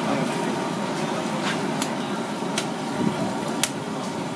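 Large oysters in the shell grilling on a perforated metal plate over charcoal: a steady sizzling hiss with a handful of sharp pops and clicks scattered through it.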